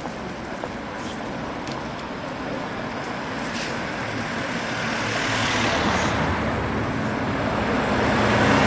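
City street traffic: cars driving past, the noise swelling in the second half as a vehicle comes close and loudest near the end.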